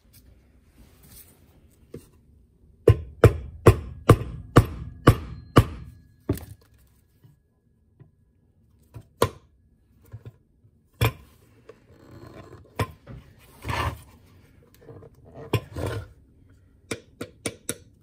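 A quick run of about nine knocks, about three a second, then a few scattered knocks and handling clatter: the wooden case of an antique GPO Bell 1a telephone bell being tapped and handled, to straighten its bent lid hinge.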